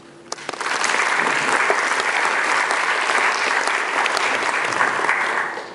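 Audience applauding: dense clapping that starts about half a second in, holds steady, and fades out near the end.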